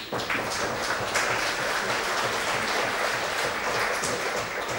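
Audience applauding in a hall, a steady even clapping that starts just after a pause in the talk.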